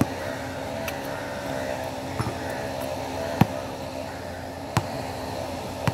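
A basketball bouncing on a hard outdoor court: a handful of sharp thuds at uneven spacing, the loudest about three and a half seconds in, over a steady background hum.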